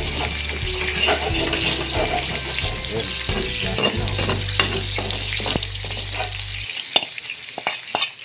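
Pork pieces sizzling in hot oil in a frying pan while a metal spatula scrapes and clinks against the pan as the pork is scooped out. The sizzle thins out in the last couple of seconds, leaving a few sharp clicks.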